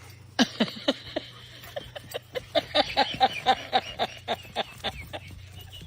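A rapid string of short animal calls, about four to five a second, beginning about half a second in and thinning out toward the end.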